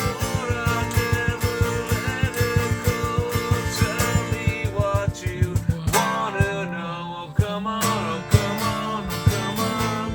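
Background music: a guitar-led song with a steady, even beat.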